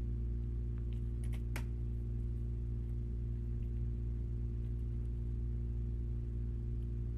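A steady low hum with no change in pitch or level, and a few faint clicks about a second and a half in.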